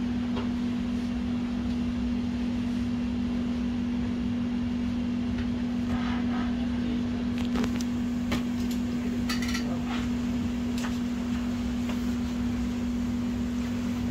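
A steady electric hum at one low pitch, like a small fan or blower motor running on the repair bench. A few light clicks and scrapes of tools on the workbench come near the middle.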